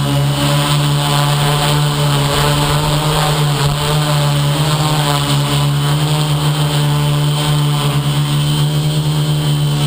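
FPV model aircraft's motors and propellers running steadily in flight, a loud, even drone with only slight changes in pitch.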